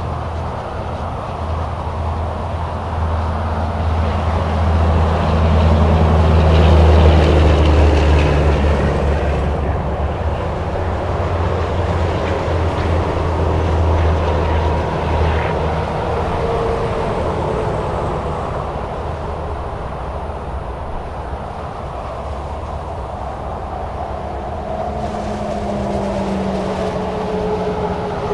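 Highway traffic streaming past at speed, with steady tyre noise. A heavy truck's deep engine rumble swells to its loudest about seven seconds in and dies away by about fifteen seconds, and later passing vehicles leave sliding whines.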